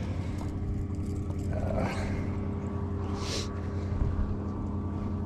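Boat motor running with a steady hum. A short hiss comes about three seconds in.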